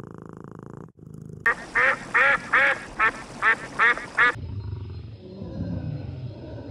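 A duck quacking about eight times in quick, even succession. It is preceded by a cat's purr and followed by a low rumble.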